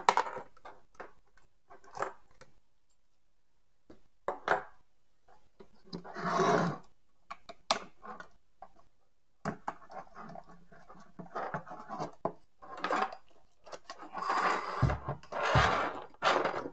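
Plastic wiring-harness connectors and cables being unplugged from an engine ECU and handled, with irregular clicks, scrapes and rustles, then the finned metal ECU casing being picked up and turned over, with two dull knocks near the end.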